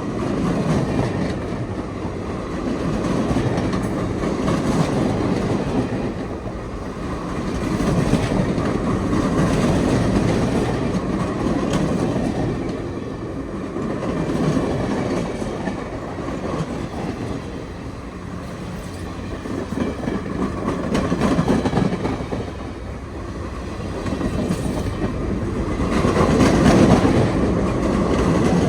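Excursion train rolling past at close range, its wheels clacking over rail joints. The rumble swells and eases every few seconds and is loudest near the end.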